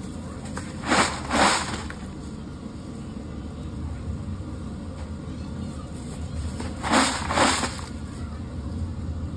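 Crisp fried potato wafers rustling and crunching as a plastic-gloved hand tosses them with spice powder in a tub: two pairs of short bursts, about a second in and again about seven seconds in, over a steady low hum.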